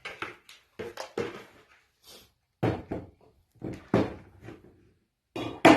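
A series of knocks and clatters, about five or six, from costume pieces being handled and set down on a hard surface.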